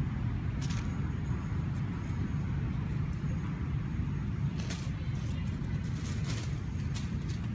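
Steady low rumble with a few brief crackles of dry leaf litter, stirred as long-tailed macaques forage among the leaves.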